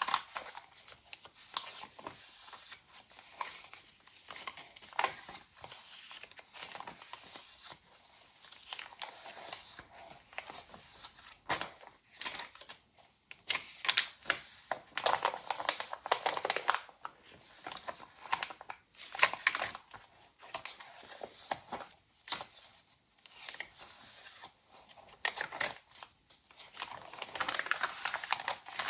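Pages of a handmade junk journal being turned and handled: paper and cardstock rustling and crinkling, with many irregular sharp clicks and taps.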